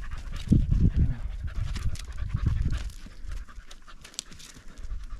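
Heavy panting from exertion on a steep climb, with loose rock crunching and clicking underfoot.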